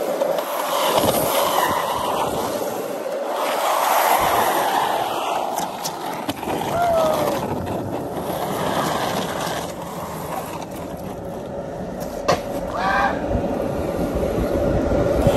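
Downhill longboard rolling fast over pavement: a steady rolling roar of the wheels with a faint hum. There are a couple of sharp clicks about twelve seconds in.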